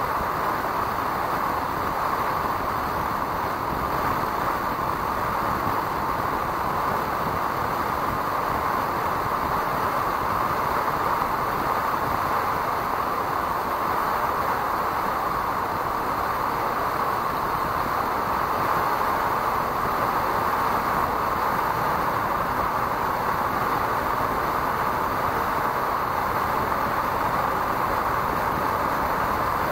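Steady rush of wind and road noise from a motorcycle cruising at about 95 km/h, with wind on the microphone; no distinct engine note stands out.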